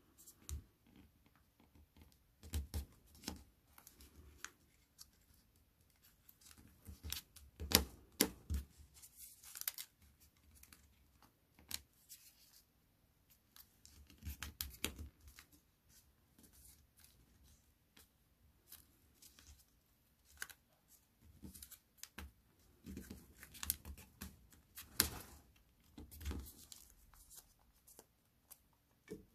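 Sheet of origami paper rustling and crackling as fingers fold it and press the creases flat, in irregular clusters of crisp clicks and crinkles, loudest around eight seconds in.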